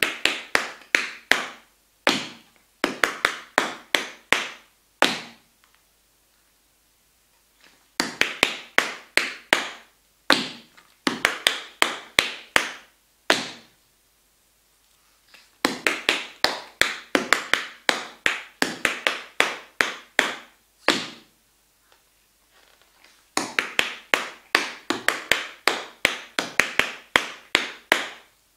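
Tap shoes' metal taps striking a wooden floor in fast, rhythmic runs of steps. There are four phrases of about five seconds each, with a short pause of a second or two between them.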